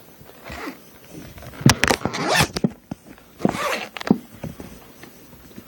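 Paintball gun case being handled and opened: a few sharp clicks and knocks with two short bursts of rustling or scraping.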